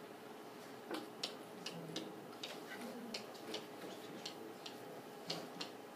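Stylus tapping on a tablet's glass screen while handwriting: irregular light clicks, a few a second, over a faint steady room hum.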